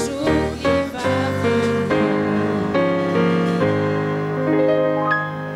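Keyboard playing a slow series of sustained chords, ending on a held chord that starts to fade near the end.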